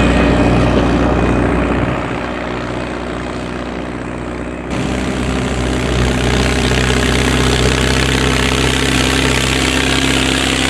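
Straight-piped Ford 7610 tractor's diesel engine running steadily while it pulls a level bar over tilled soil. The sound drops back a little, then changes abruptly about halfway through, and the engine is louder from then on as the tractor comes closer.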